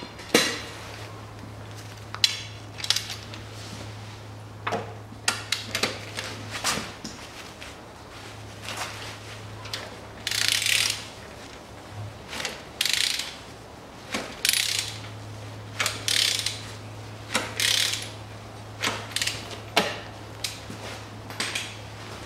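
Ratchet wrench clicking in repeated short bursts as the crankshaft of a 2010 Kia Rio's 1.4 DOHC 16-valve engine is turned over by hand, two or three turns after a new timing belt and rollers, to check that nothing binds.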